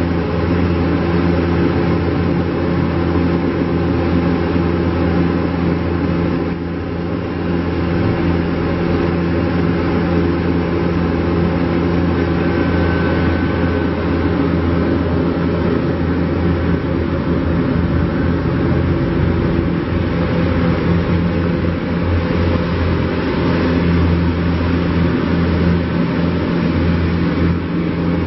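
Diesel engine of a 2015 New Holland Boomer 41 compact tractor running steadily at constant speed, with a brief dip about six and a half seconds in.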